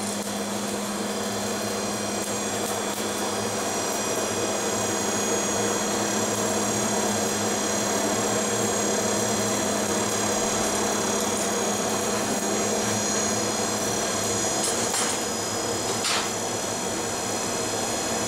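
Steady mechanical running noise, like a workshop machine or blower, with a constant low hum that drops out about fourteen seconds in. A couple of faint clicks come near the end.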